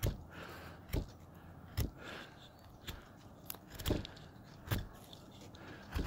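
Hand carving tool cutting against the grain of a hard piece of wood, chipping it off rather than taking clean slices. About seven short, sharp cracks of splitting wood come roughly once a second.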